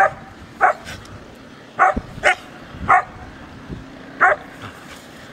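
Samoyed barking: six short, sharp barks at uneven intervals over about four seconds.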